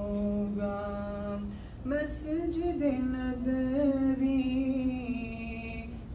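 Solo unaccompanied singing of an Urdu naat, a devotional song in praise of the Prophet Muhammad. The voice holds long, wavering notes that slide between pitches, with a short breath about two seconds in.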